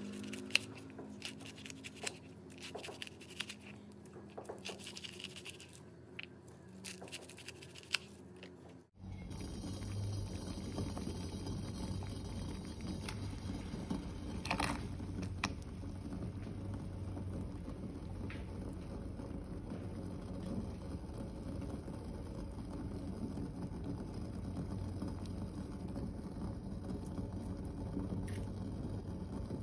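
Knife slicing lemongrass stalks on a plastic cutting board, a run of sharp cuts. About nine seconds in it gives way to the steady low rumbling hiss of a pot of water at a boil on the stove, with a brief knock near the middle.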